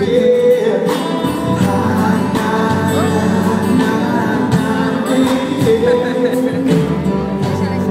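Live band playing a Brazilian pop song: guitars, keyboard, bass and drums, loud and steady, heard through a phone recording from the audience.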